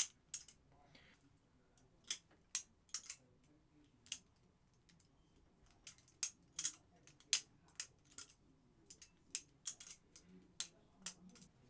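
Practice butterfly knife (balisong trainer) being flipped, its metal handles and blade clacking together in about twenty sharp clicks at uneven intervals, some in quick pairs.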